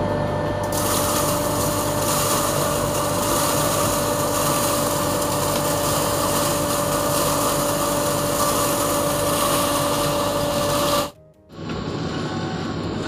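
Choyal automatic domestic atta chakki (flour mill) running at full speed on a test run after repair: a steady high motor whine with a lower hum under it, and a loud rushing hiss that comes in about a second in. Near the end it cuts off suddenly, and a quieter, lower hum follows.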